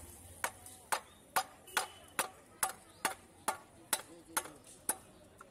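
Catla fish being cut on a boti, the upright curved blade of a floor knife: sharp, evenly spaced clicks, about two a second, as the flesh is drawn against the blade stroke after stroke.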